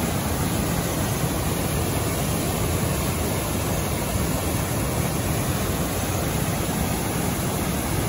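Steady rush of a waterfall in flood: a heavy, fast flow of water pouring over a rock ledge into a foaming pool.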